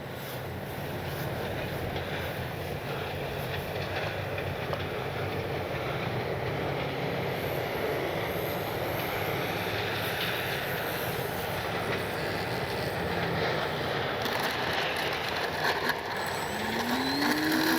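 Strong wind rumbling on the microphone, with the electric motor and propeller of an FMS Ranger RC plane whining faintly as it flies, swelling and fading midway as the plane passes. The motor note rises near the end.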